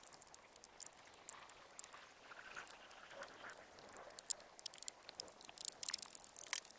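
Handling noise of a heavy 4-gauge power cable being pushed into a plastic wiring channel along a truck's door sill: light scattered clicks, scrapes and rustles, busier near the end.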